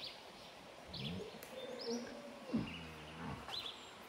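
A cow lowing once, a call of about a second that falls in pitch, a little past halfway, with birds chirping around it.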